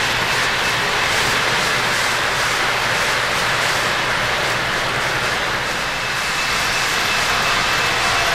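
O-gauge model freight train rolling past on three-rail track: a steady rumble of metal wheels and the locomotive's electric motor, with a faint high whine over it.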